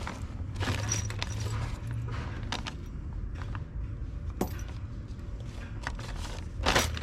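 Metal bracket and bolts being handled and fitted, with scattered short clinks and rattles, a few of them louder about a second in and near the end, over a steady low hum.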